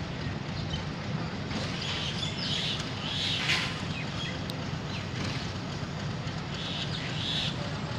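Diesel-electric locomotive running with a steady low rumble as it approaches slowly. Birds chirp about two to three and a half seconds in and again near the end.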